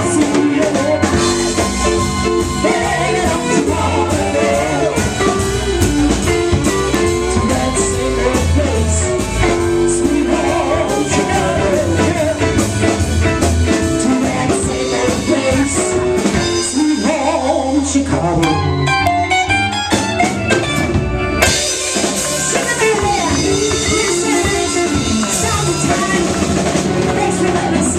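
Live blues band playing an instrumental stretch on drum kit and guitar. About eighteen seconds in, the bass and drums drop back for a few seconds, then the full band comes back in.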